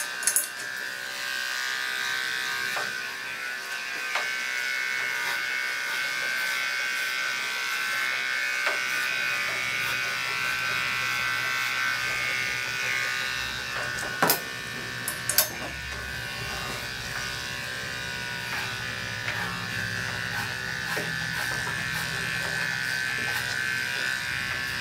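Andis Endurance detachable-blade dog clipper running with a steady buzz as it is worked through a dog's coat, with a couple of sharp clicks about fourteen and fifteen seconds in.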